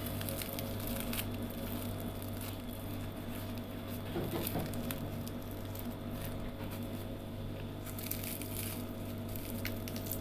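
Crisp fried sfenj crust crackling and tearing as hands pull the fried yeast-dough ring apart, a run of small irregular crackles, over a steady low hum.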